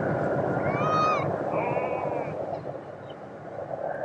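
Boeing 737 jet airliner passing with a steady rush of engine and air noise that eases a little near the end. Two short high whistle-like tones sound over it about one and two seconds in.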